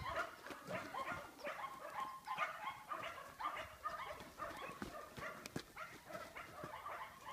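Dogs yipping and whining over and over, with short, high, wavering calls following one another.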